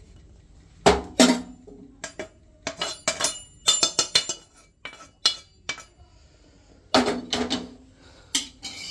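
Metal kitchen utensils clinking and knocking: a kadhai, spoon and plate striking one another as roasted seeds are tipped out and scraped. Two sharp knocks about a second in, a run of lighter clinks, then more knocks near the end.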